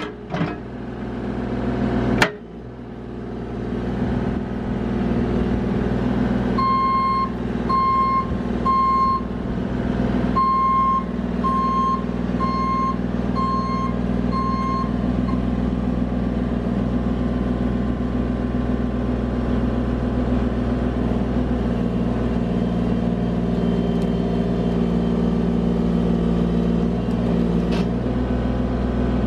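Bobcat E35 mini excavator's diesel engine running steadily under hydraulic load, heard from inside the cab, with a sharp knock about two seconds in. From about seven seconds in to about fifteen seconds in, the machine's travel alarm beeps about nine times in two runs with a short break, as the excavator tracks to a new position.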